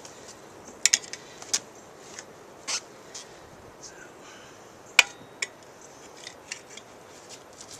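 Metal tools clicking and clinking against a motorcycle wheel while a stiff tire that has not fully seated is worked over the rim, with one sharp knock about five seconds in.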